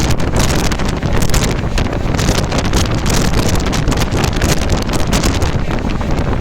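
Wind buffeting the microphone: a loud, continuous rushing and flutter with no clear engine note.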